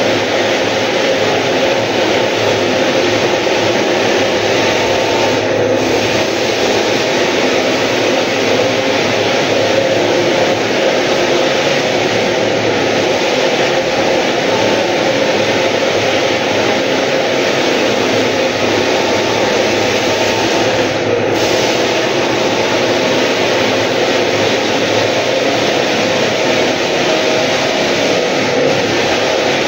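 Electric floor sanding machine running steadily as it sands a wooden floor: a continuous motor noise with a grinding hiss.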